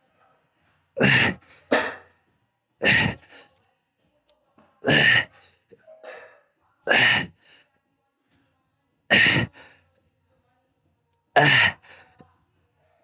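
A man's sharp, forceful exhalations, one with each rep of a single-leg dumbbell Romanian deadlift, about every two seconds, six in all, some followed by a quick softer breath; the breathing of a man under heavy exertion.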